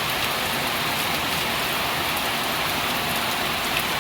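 Heavy rain pouring down steadily in a downpour, with water rushing and drops pattering on hard surfaces.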